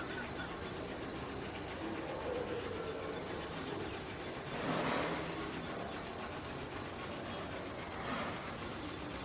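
Outdoor morning ambience: a bird gives a short, high chirping series about every second and a half over a steady low background rumble, with a brief whooshing swell near the middle that rises and fades.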